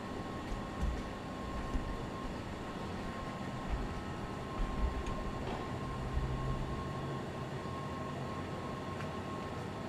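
Steady background hum with a faint constant high whine, broken by a few short low thumps and faint clicks in the first half.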